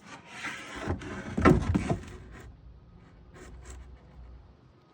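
A cut plywood panel being set into place on a platform: wood rubbing and scraping, with the loudest knocks about a second and a half in, then a few light taps.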